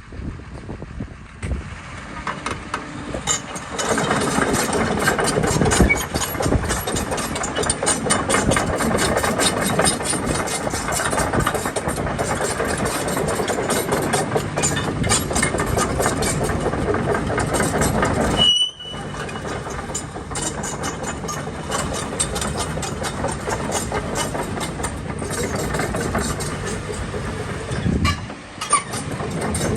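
Hyundai R220LC-9A crawler excavator's diesel engine running, with a dense clatter throughout. It gets louder about four seconds in and cuts out for a split second a little past halfway.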